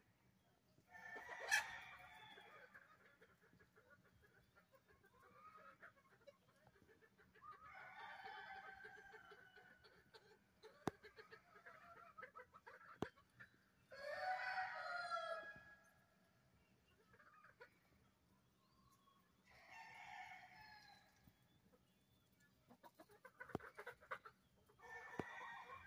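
Free-range chickens calling: roosters crowing several times, each crow a second or two long, with hens clucking; the longest and loudest crow comes about halfway through.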